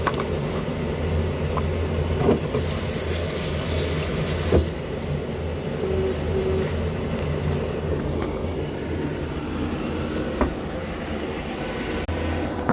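Steady low hum with a few light knocks, and a brief hiss at about three to four and a half seconds.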